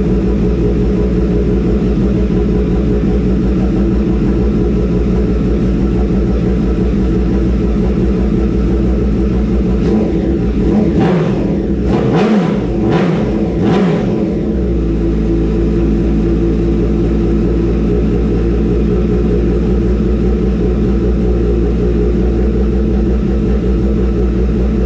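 Honda CBR1000RR's inline-four engine running at idle after its first start in a long while. It is blipped up and back down about four times in quick succession around ten seconds in, then settles back to a steady idle, sounding healthy with no odd noises.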